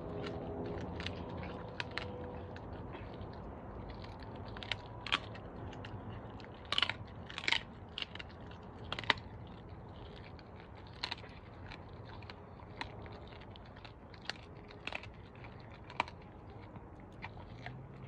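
A Doberman chewing a raw squirrel, with irregular sharp crunches as it bites through it; the loudest crunches come around the middle.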